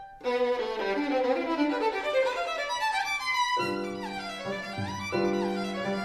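Background instrumental music led by a violin: a melody that changes about three and a half seconds in to held low notes with sliding higher notes above.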